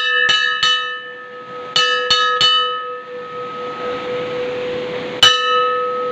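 Brass temple bell being rung by hand: three quick strikes, a pause, three more, then a single strike about five seconds in, with a long ringing hum sustaining between the hits.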